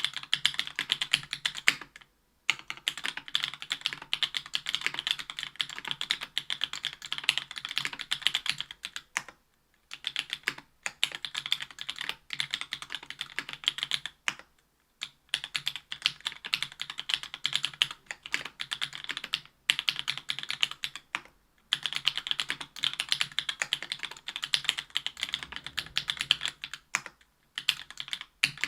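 Fast typing on a Special Whale LinWorks mechanical keyboard with stock JWK Black Clear Top 62 g linear switches, an aluminum plate and GMK keycaps: a dense run of keystroke clacks broken by short pauses every few seconds.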